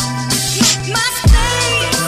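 Background music with a steady beat over a held bass line.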